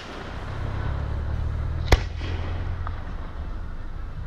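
Aerial fireworks going off: one sharp bang about two seconds in, over a low steady rumble.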